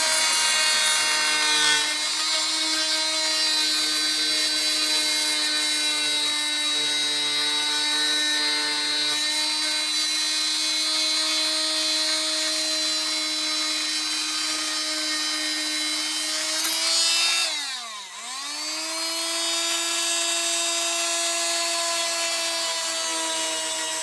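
Small electric power sander running steadily at high speed while sanding. About eighteen seconds in, its motor briefly slows right down and then speeds back up.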